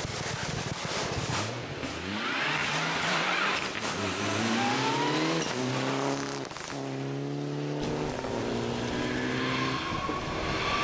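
Rally car engine accelerating hard, its pitch climbing and dropping back at each gear change, several times.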